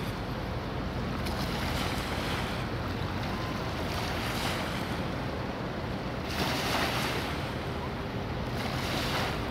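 Rolls-Royce Trent 900 jet engines of an Airbus A380 running as the airliner rolls along the runway after landing: a steady rushing roar with a low rumble, swelling briefly twice, with wind on the microphone.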